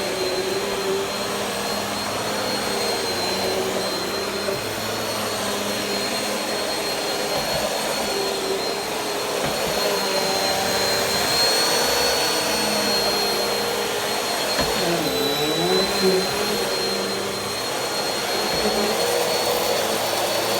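Vacuum cleaner running steadily on the floor, with a constant high whine over its motor hum. About fifteen seconds in, the motor tone briefly dips in pitch and recovers, as the machine is loaded for a moment.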